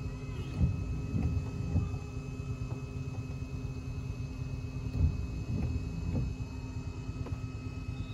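Low, gusty rumble of wind buffeting the microphone, with a few louder low thumps, over a faint steady hum.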